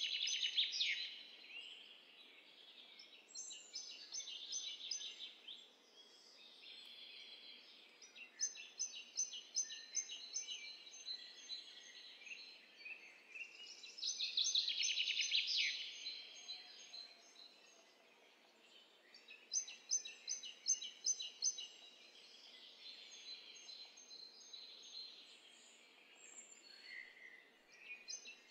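Small birds chirping and singing in bouts of quick, repeated trills over a faint steady hiss.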